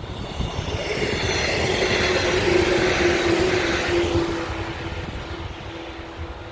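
Shinano Railway 115 series electric train passing by: its running noise swells to a peak about two to three seconds in, then fades. A steady whine drops slightly in pitch as the train goes past.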